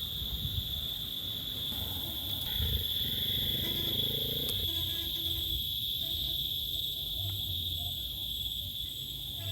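Insects chirring in a steady, unbroken high-pitched drone, with faint low background noise beneath.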